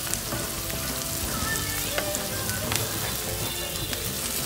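Sliced onions sizzling steadily as they sauté in hot oil in a nonstick pan, stirred with a wooden spatula that gives a few light taps and scrapes against the pan.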